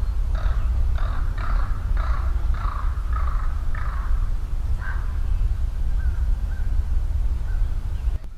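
A field recording of harsh, crow-like cawing calls repeated about every half-second, stopping about five seconds in and leaving a faint thin whistle-like tone, over a steady low rumble of recorder and wind noise. The recordist believes the calls are not a real bird but an animal mimicking birds.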